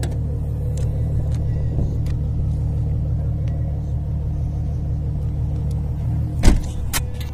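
Ford Mustang's engine idling steadily, with one sharp thump near the end.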